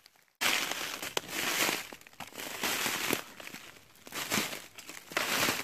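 Footsteps crunching through thin snow over dry leaves and twigs, in uneven surges with sharp snaps, starting after a brief silence.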